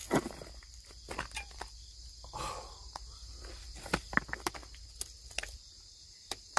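Scattered sharp clicks and knocks of handling, over a steady high drone of insects.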